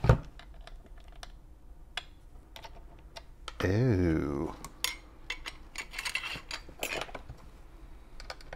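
Small metal parts clicking, tapping and scraping as a screw is tried in the jigsaw's rip-fence mount, a screw too big for the hole.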